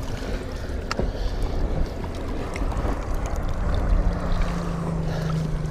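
Open-water sound around a small fishing boat: a steady low rumble of wind and lapping water, with a single knock about a second in. A steady engine hum comes in about four seconds in.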